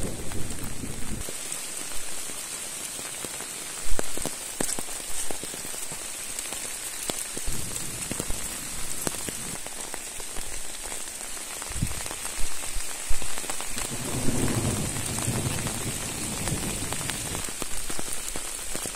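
Steady rain falling, with many individual drops tapping close by and a few louder knocks, the loudest about four seconds in.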